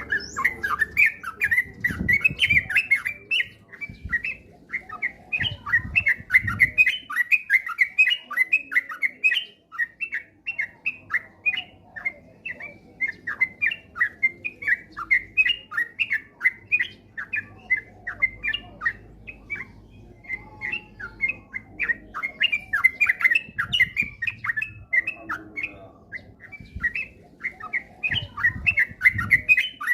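Yellow-vented bulbul (trucukan) singing in a fast, near-continuous run of short chirping notes, several a second: the rapid 'ropel' song used as a lure recording to set other trucukan singing.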